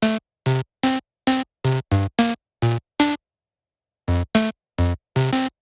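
Electronic music made of short, clipped synth stabs, about three a second, each cut off into silence, with a pause of about a second near the middle.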